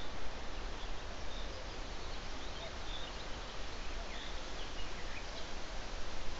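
Steady outdoor hiss with a low hum underneath and faint, short bird chirps now and then.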